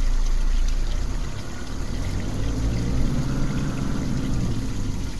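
Four-wheel drive's engine running at low speed, with tyre and road noise from the dirt track, heard from inside the cab. The engine note wavers slightly.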